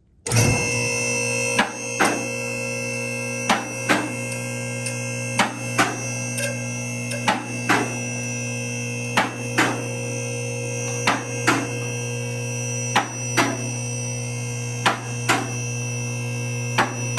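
Intro music: a steady held drone with a pair of sharp hits about every two seconds.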